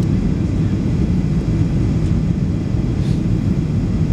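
Steady low rumble of engines and rushing air heard inside the passenger cabin of a Boeing 737 MAX airliner descending to land.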